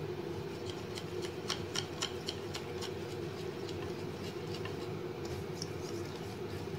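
Wire balloon whisk beating thin gram-flour batter in a ceramic bowl, its wires clicking and tapping irregularly against the bowl a few times a second, over a steady low hum. The batter is being beaten to work out the lumps.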